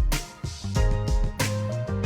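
Background music with a steady beat: held instrumental notes over a bass line, with percussion strikes about every half second.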